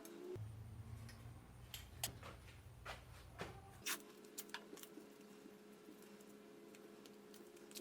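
Faint scattered clicks and light taps over a low steady hum, which changes character abruptly twice.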